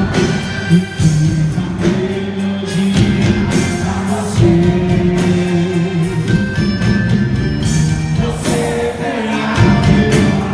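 Live forró-style festa junina music with sung vocals over a steady beat, accompanying a quadrilha dance.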